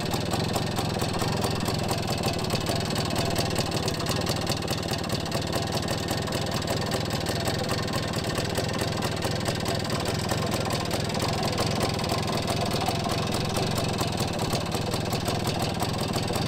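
1971 BSA Bantam B175's 175 cc single-cylinder two-stroke engine idling at a steady, even speed.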